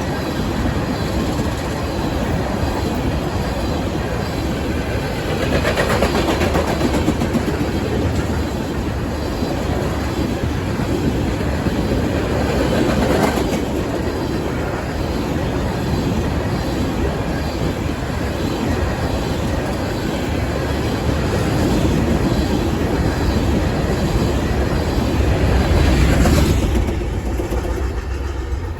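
Freight train of ethanol tank cars rolling past at speed: steady wheel-on-rail noise with clickety-clack over the rail joints, swelling louder a few times.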